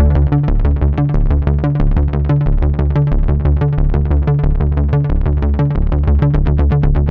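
Korg Mono/Poly analog synthesizer playing a fast, evenly repeating bass-heavy pattern, about six notes a second, with the low pitch stepping to a new note every second or so.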